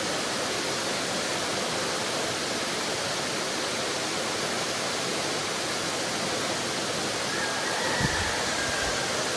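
Waterfall rushing, a steady, even roar of falling water, with a brief low thump near the end.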